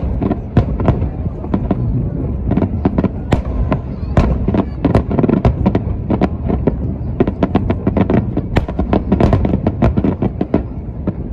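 Aerial fireworks display: a steady barrage of shell bursts and sharp reports over a low rolling rumble, growing into a rapid, dense string of bangs in the second half.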